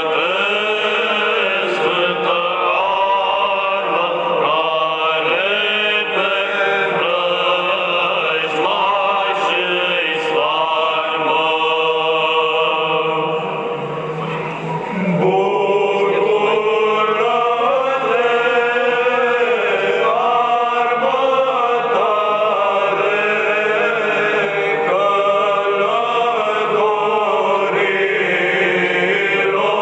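A church choir chanting an Orthodox hymn to the Holy Cross in Romanian, verse after verse, with a brief lull a little under halfway through before the singing picks up again.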